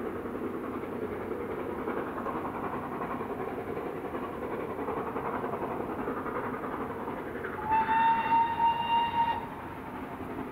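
A GWR Castle Class steam locomotive working out of sight, a steady rumble of exhaust and running noise. About three-quarters of the way in comes one steady whistle blast lasting about a second and a half.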